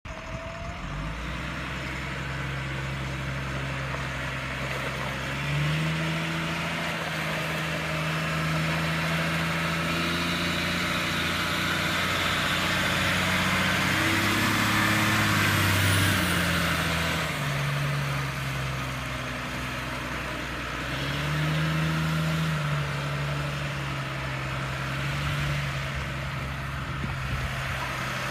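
An M1088 MTV tractor truck's diesel engine running as the truck drives slowly past. The engine's pitch steps up and down a few times as the revs change. The sound swells loudest about halfway through, as the truck comes closest.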